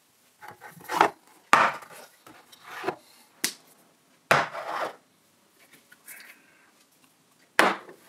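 Tins of milk and other groceries taken off a cupboard shelf and set down one by one on a kitchen worktop: about six separate knocks and scrapes, the loudest about four and a half seconds in.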